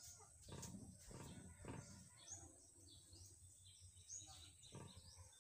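Quiet rural background: faint, scattered bird chirps and a few soft knocks.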